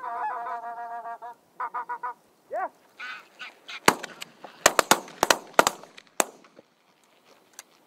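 Greylag geese honking overhead in a flock, then, about four seconds in, a quick run of about eight loud shotgun shots over roughly two seconds.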